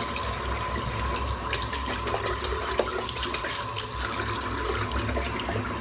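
Tap running steadily into a sink, with a few faint clicks of water or handling.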